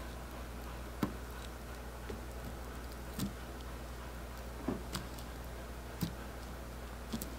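Scattered light clicks and taps as gloved fingers handle and press a water pump's white ceramic seal ring into the rubber cup of its impeller, about six in all, the sharpest about a second in and near the end. A steady low hum runs underneath.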